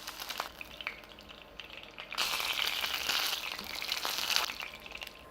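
Chicken drumsticks frying, a hissing sizzle that starts about two seconds in and dies down near the end, with a few faint clicks before it.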